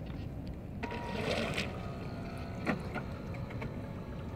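Steady low wind rumble on the microphone, with a short rush of water lapping against the stone shore about a second in and a single light knock near three seconds.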